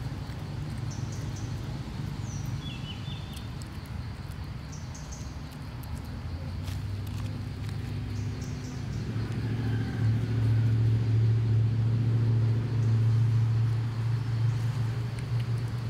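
Low, steady engine-like hum that grows louder about nine seconds in, with a few faint high bird chirps in the first few seconds.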